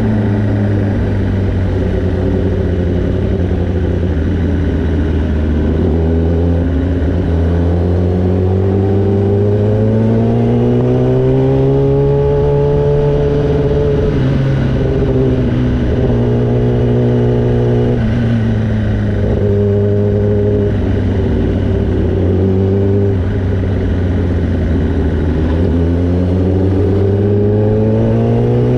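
Superbike engine heard from the rider's seat while cruising at low speed. Its pitch rises smoothly for a few seconds around the middle, falls back, holds fairly steady, then rises again near the end.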